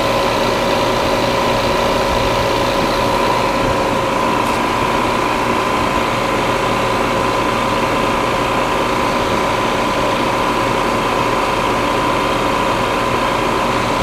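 Refrigerant recovery machine's compressor running steadily with a constant hum and whine, pulling the AC system down to about zero psi near the end of the recovery.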